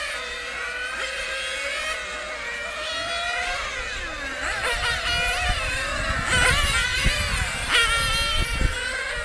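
Several nitro-powered radio-controlled racing cars with small glow engines, screaming at high revs and dropping off through the corners, their whines overlapping and rising and falling. The sound grows louder about six seconds in as cars come closer.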